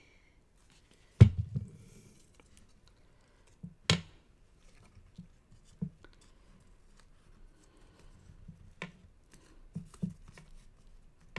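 Hands handling and pressing cardstock pieces of a pop-up card on a cutting mat: faint paper rustling with a few sharp taps, the loudest about a second in.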